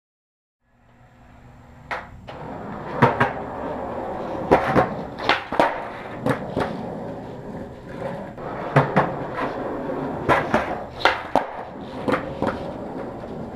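Skateboard wheels rolling on concrete, with repeated sharp clacks of the board's nose popping off the ground and the board landing as nollie 180s are done. It starts just under a second in, after a moment of silence.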